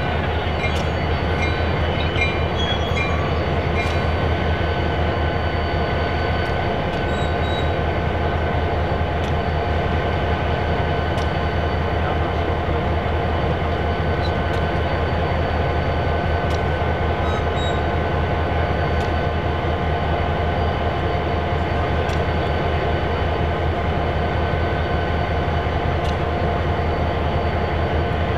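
Diesel locomotive train running: a steady, loud low engine drone with steady high whining tones above it, and a few light clicks in the first four seconds.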